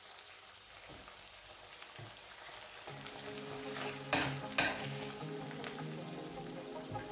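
Omena in tomato sauce sizzling in a non-stick frying pan while a metal spoon stirs it, with two sharp knocks of the spoon against the pan about four seconds in.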